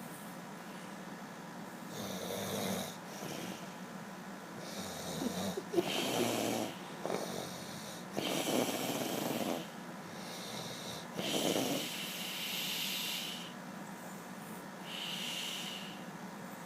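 Snoring: about five rough, noisy snoring breaths, each around a second long, coming irregularly every couple of seconds.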